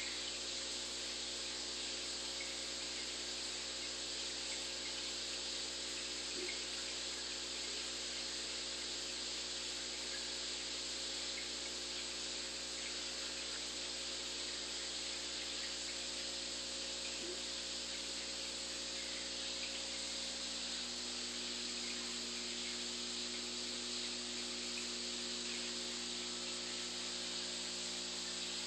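Steady running noise of a home aquarium: a constant hiss of moving water with an even low hum from the tank's equipment.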